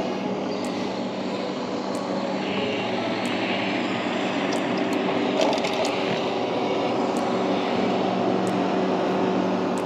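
A steady engine drone with a constant pitch over a hiss of wind and water, with a little handling noise about halfway through.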